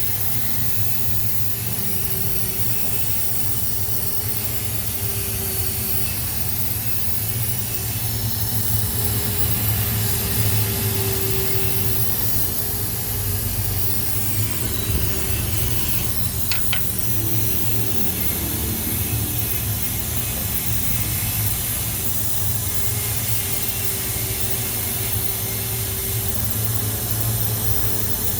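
A steady low machine hum under a constant hiss, with a brief click a little past the middle.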